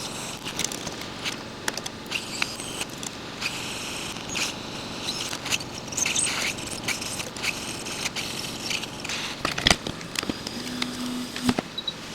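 Hot air rework station blowing over a stencil of solder paste during reballing, a steady rush of air with scattered clicks and scrapes of tools. A short low tone sounds near the end.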